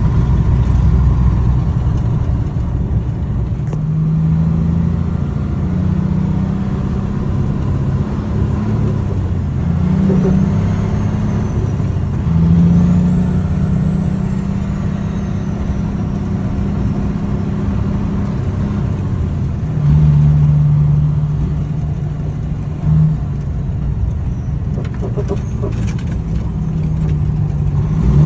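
Truck engine running as it drives along a gravel road, heard from inside the cab, with tyre and road rumble underneath. The engine note shifts up and down between a few steady pitches as the load and gears change, with a few brief rattles near the end.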